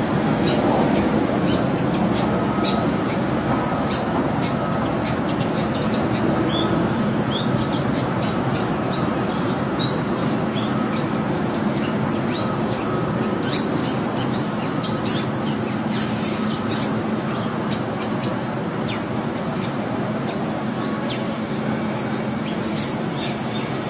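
Long-tailed shrike giving many short, high chirps and sharp clicks, busiest in the middle, over a loud steady rumbling noise and a thin high hiss.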